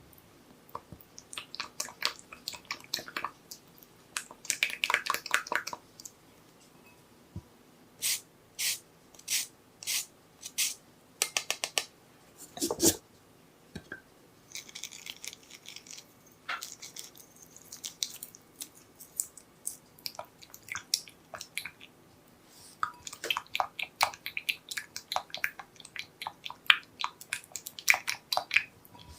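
Kitchen food-preparation sounds: utensils clicking and scraping against a bowl or board, with soft squishes of ingredients being handled. A run of about six evenly spaced strokes comes near the middle, followed by one heavier knock.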